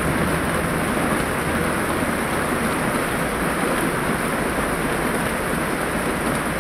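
Heavy rain pouring steadily onto a wet street, an even, unbroken hiss.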